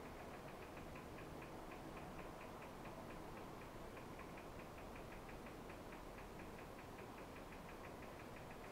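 Quiet room tone with a faint, fast, even ticking, about five ticks a second.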